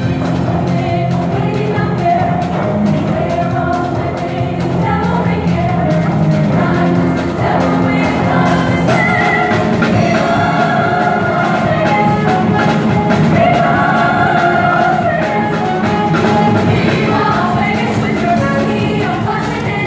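A large show choir singing together.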